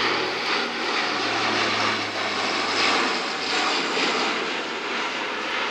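Airbus A400M Atlas's four turboprop engines and multi-bladed propellers running at display power as it flies past in a banked turn: a steady, loud drone with a low hum that sags slightly in pitch about a second in.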